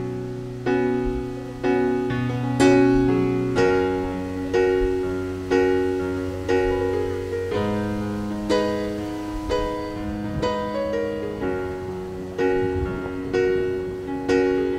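Calm instrumental background music: slow, gently struck notes, about one a second, each fading away, over held low bass notes.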